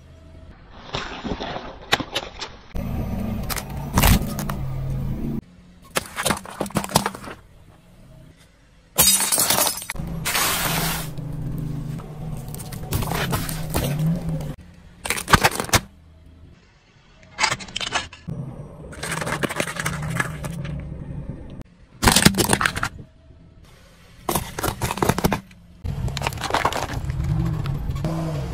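A car tyre slowly rolling over and crushing one object after another: a string of sudden cracks, pops and crunches, with the low rumble of the car in between. Among the things crushed are a watermelon, balloons, juice cartons and drink cans that burst and spray.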